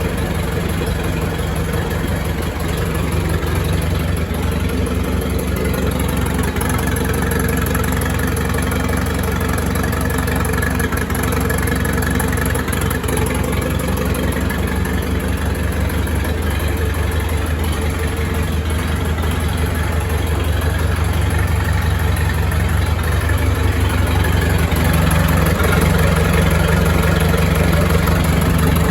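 1928 Farmall Regular tractor's four-cylinder engine running steadily at idle, growing slightly louder in the last few seconds.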